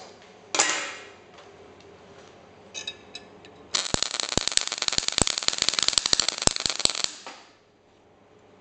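MIG/MAG welding arc burning for about three seconds with the wire feed set far too high for the voltage. It makes a harsh, irregular crackle full of loud sharp cracks, because the wire comes out too fast to melt, stubs into the plate and pushes the torch back, leaving bits of unmelted wire around the work.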